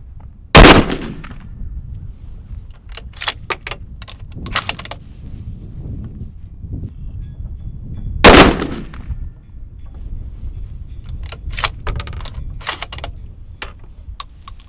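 Two shots from a Bergara B14 bolt-action rifle in .300 Win Mag, one under a second in and one about eight seconds later, each a loud crack with a short echo trailing off. Between and after the shots come clusters of sharp metallic clicks as the bolt is worked.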